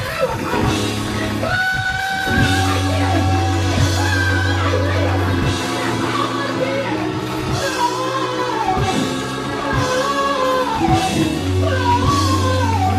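Live gospel praise-break music from a church band: drums hitting steadily under long held low notes, with a voice singing over the top.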